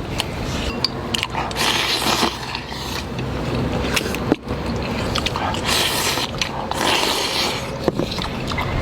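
Eating at the table: utensils clicking and scraping against bowls, mixed with chewing, in scattered sharp clicks and short rustling stretches.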